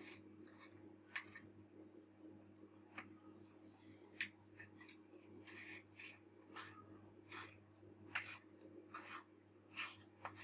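Faint, irregular scrapes and rubs of fingers twisting a stiff threaded ring on a camera lens barrel, working it loose, over a steady low hum.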